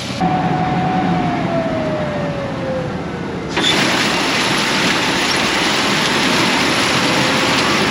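Combine harvester running, a loud steady rush of engine and machinery noise. For the first few seconds a single tone slides slowly down in pitch.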